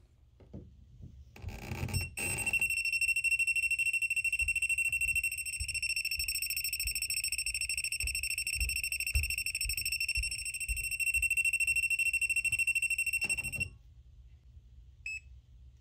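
Kaiweets HT100 pen-style AC voltage detector sounding its alarm, one steady high-pitched beep for about eleven seconds while its tip sits in a live outlet slot; the alarm signals that AC voltage is detected. A brief rustle comes just before the tone starts, the tone cuts off suddenly, and a single short beep follows near the end.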